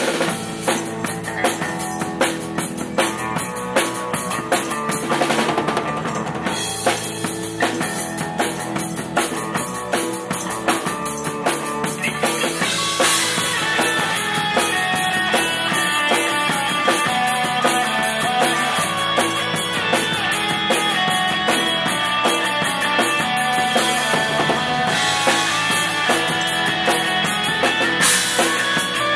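Live band playing, with a drum kit keeping a steady beat under the other instruments; the music gets fuller about halfway through.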